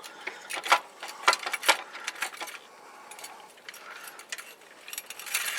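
Metal clinks and rattles of a scissor jack being handled as it is drawn out from under the car after being lowered.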